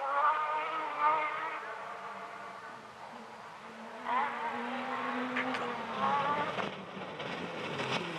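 Cross-country rally car engine running hard, its pitch rising and falling as it comes on at full throttle and lifts off, then a car passing close by near the end.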